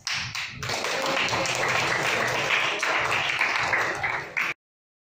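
A classroom of students applauding. It opens with a few separate hand claps, fills into a dense patter of clapping, and cuts off suddenly about four and a half seconds in.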